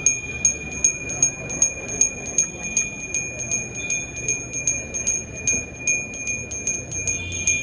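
Temple bell rung steadily, about two to three strikes a second, with its high ringing tone carrying on between strikes. It stops suddenly at the end.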